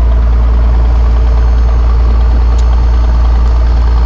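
A boat's engine running steadily, with a deep, constant hum under a dense mechanical rumble.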